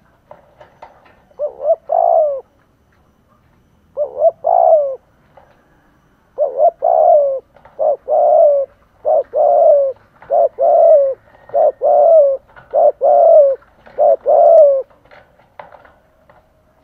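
Male spotted dove in a cage giving the rapid "gù" coo: short two-part coos, a brief note then a longer one. Two coos come early, then a run of about seven follows about a second apart. This is the fierce, fast cooing used to provoke and lure wild male doves.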